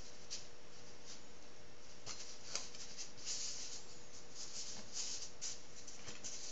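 Coupler nuts being twisted by hand onto steel threaded rod, giving light scraping and rustling with a few small clicks, over a faint steady hum.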